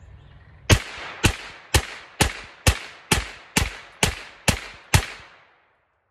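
Henry Homesteader 9mm semi-automatic carbine firing ten shots in steady succession, about two a second, each shot trailing off briefly.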